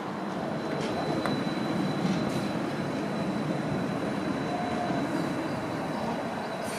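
Croydon Tramlink Stadler Variobahn tram pulling away: a steady rumble of wheels on rail with a thin, high, steady tone held from about a second in to near the end.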